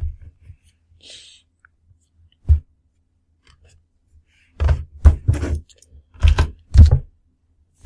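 Handling noise of hard objects being moved and set down on a workbench: single knocks and thuds, then two quick clusters of them from about halfway through.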